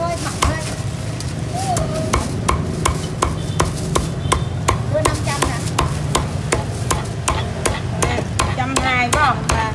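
Cleaver chopping crispy-skinned roast pork on a thick wooden chopping block: a quick, regular series of sharp chops, about three a second, each one a crunch through the crackling skin and a knock on the block.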